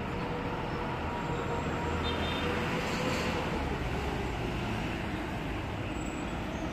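Steady low rumble of surrounding city traffic, with a faint droning tone over the first few seconds that then fades.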